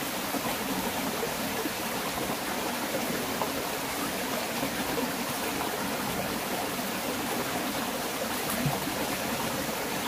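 Shallow rocky stream running steadily over stones, a constant rushing of water.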